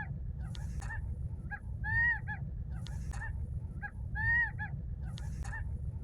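Gambel's quail calling, repeating the same call about every two seconds: a few short notes and then a loud arched note. A steady low rumble of wind on the microphone runs underneath.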